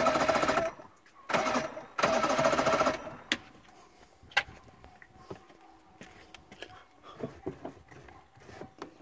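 Johnson V4 two-stroke outboard's electric starter cranking the engine in three short bursts, the last about a second long, with a steady whine and a fast even churn. The engine does not catch. A few faint clicks follow.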